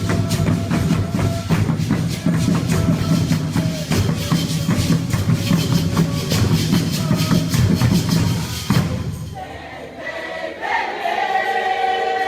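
Congada music: drums and tambourines beating a steady rhythm with voices, the percussion stopping about nine seconds in, then voices holding long sung notes.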